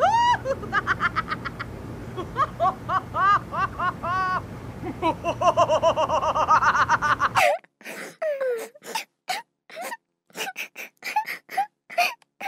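A cartoon character voice giggling in quick repeated bursts over a steady background noise. About seven seconds in, the giggling and background cut off suddenly, and a run of short, separate voice sounds follows.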